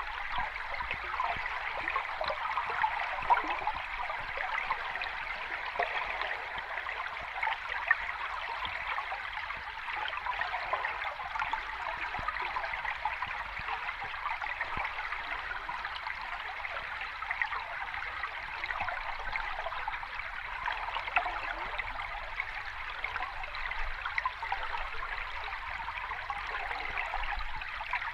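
Water running down a small cascade, a steady splashing babble with a few brief, sharper splashes.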